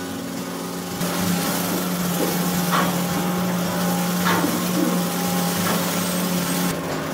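Coste straw bale shredder-blower running: a steady motor hum with the rushing of chopped straw being thrown out, louder from about a second in.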